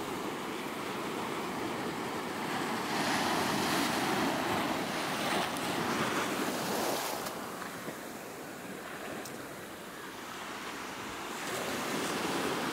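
Sea waves washing up a sandy beach and drawing back, with wind. The surf swells, eases off after the middle and rises again near the end.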